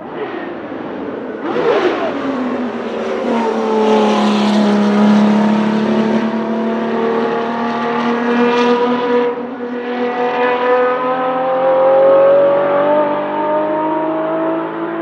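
Porsche 917K's air-cooled flat-12 racing engine, loud and close. Its note falls sharply about two seconds in, then climbs steadily as the car accelerates away along the track.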